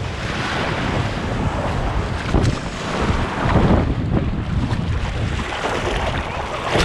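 Shallow ocean surf washing and foaming around a camera held at the waterline, in surges, with wind buffeting the microphone.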